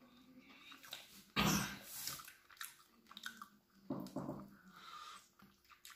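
Close-up eating sounds of a man eating chicken curry and rice by hand: irregular chewing and mouth noises, the loudest burst about one and a half seconds in.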